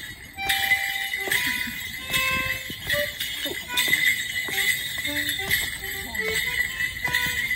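Morris dancer's shin bell pads jingling with every step and hop of a double jig, over the accompanying dance tune.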